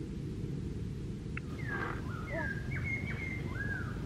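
A bird sings a short run of clear whistled notes, several sliding down in pitch, starting about one and a half seconds in, over a steady low rumble.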